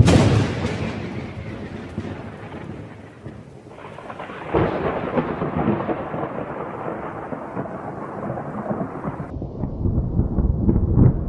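Thunder and rain: a sudden loud thunderclap that rolls away over a few seconds, a second clap about four and a half seconds in, then continued rumbling with the rain hiss fading out near the end.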